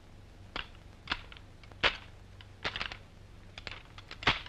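Sharp metallic clicks of a rifle being handled and loaded, a magazine seated into the magazine well: a few single clicks, then quick clusters of clicks, the loudest near the end.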